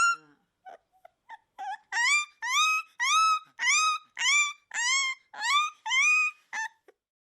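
Akita puppy crying: a few short faint squeaks, then from about two seconds in a run of about nine high-pitched cries in quick succession, each sliding up in pitch, before it falls quiet near the end.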